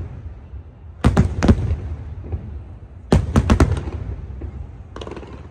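Fireworks going off in quick volleys of sharp bangs: a cluster of several reports about a second in, another about three seconds in, and a brief crackle near the end.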